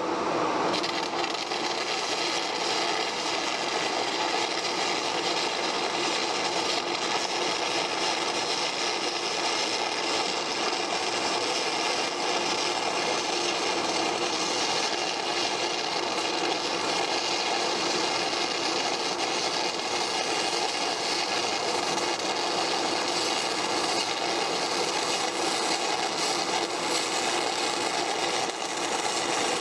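Stick (shielded metal arc) welding arc crackling steadily while a bead is run, with no break.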